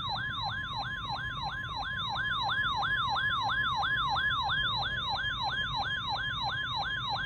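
Electronic alert siren: a fast repeating sweep that jumps up and falls in pitch about three times a second, over a steady high alert tone, sounding at the start of an emergency weather warning broadcast.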